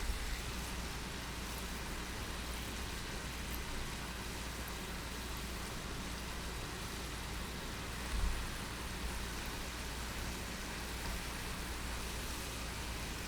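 Flour-coated chicken pieces for karaage deep frying in a pot of hot oil: a steady, even sizzle, with a soft low thump about eight seconds in.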